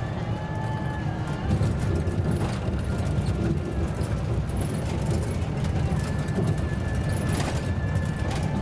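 Karosa C954E bus heard from inside the cabin, moving slowly over cobblestones: a steady low engine drone with tyre rumble and rattling of the bus body on the cobbles.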